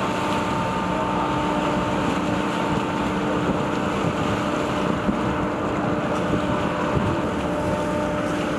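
Steady engine drone in a ship's flooded well deck: several steady tones over a low rumble, from idling outboard motors on Zodiac rubber raiding craft mixed with the ship's machinery.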